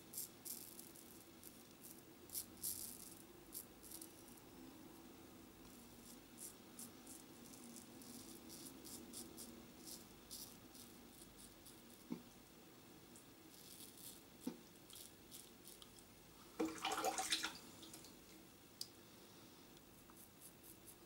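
Faint short scraping strokes of a Gillette Tech safety razor with a Gillette 7 O'Clock black blade cutting stubble through lather, in irregular clusters during the touch-up passes. A louder, longer scraping rustle comes about three-quarters of the way through.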